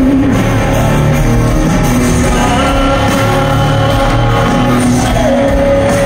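Live rock band playing loudly, heard from within the crowd of a large amphitheatre: electric guitars, bass and drums, with a singer holding notes over them.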